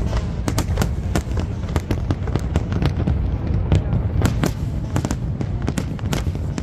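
Aerial fireworks display: a rapid, irregular barrage of sharp bangs and crackles from bursting shells, several a second, over a continuous low rumble.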